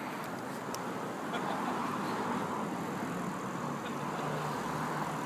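Steady outdoor background noise like distant road traffic, with a low steady hum coming in about halfway through and a few faint clicks.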